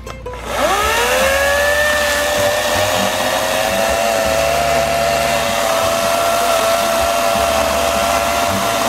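EGO 14-inch battery-powered chainsaw spinning up with a rising whine about half a second in, then running at a steady pitch as its chain cuts through a small log.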